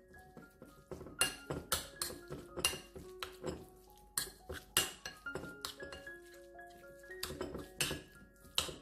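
A metal spoon clinking and scraping against a ceramic bowl at an irregular pace while stirring marinated minced pork, over soft background music with held notes.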